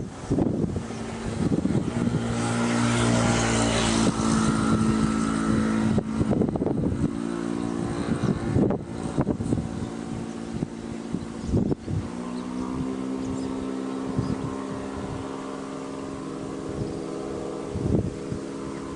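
Wind buffeting the microphone in gusts, under the steady hum of a motor vehicle's engine. The hum comes in about two seconds in, fades after a few seconds, and returns about halfway through.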